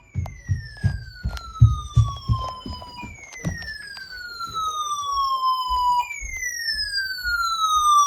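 An electronic siren-like tone that slides down in pitch over about three seconds, then jumps back up and falls again, three times in a row. Low thumps and knocks come through the first three seconds.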